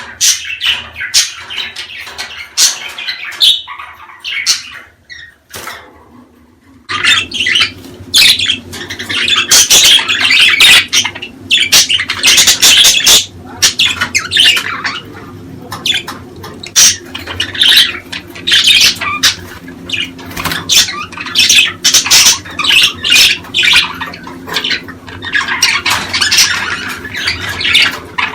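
Budgerigars chattering and squawking in a dense run of short, sharp calls. A steady low hum sits underneath from about seven seconds in.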